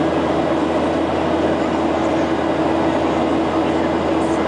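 Steady cabin noise of a jet airliner climbing out after takeoff: the turbofan engines' even rushing drone with a constant low hum tone running through it.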